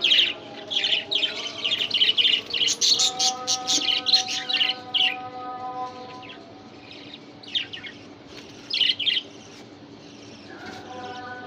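Budgerigars chirping in quick, rapid chatter for the first few seconds, then only a few scattered chirps.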